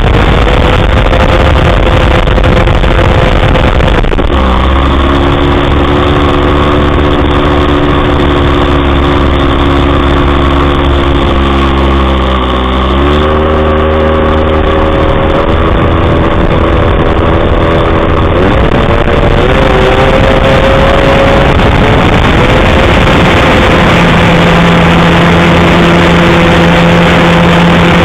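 Wot 4 Mk3 radio-controlled model plane's motor and propeller running at high throttle, recorded from the wing. It is heard over heavy wind rumble on the microphone. The pitch holds steady, sags briefly about twelve seconds in as the throttle is eased, then climbs back and shifts again as the plane manoeuvres.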